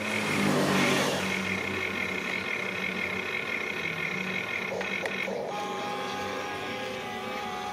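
Electric motors of a remote-control excavator whining as it works, in several steady high tones that shift to a different, lower whine about five and a half seconds in. A louder rush of noise comes briefly about a second in.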